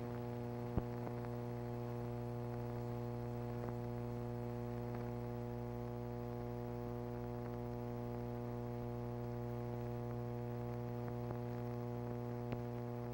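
Steady electrical hum, low and even with a stack of overtones, with a faint click a little under a second in and a few fainter ticks later.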